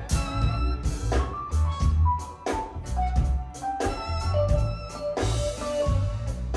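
Live funk-jazz band playing: a drum kit keeping a steady beat over heavy electric bass, with a lead line of single held notes stepping from pitch to pitch.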